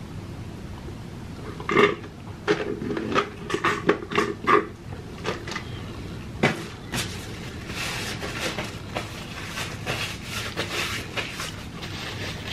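Handling noises at a table: a paper drink cup with a straw knocked and set down, with a run of short clicks and knocks, then a paper napkin rustling as a mouth is wiped.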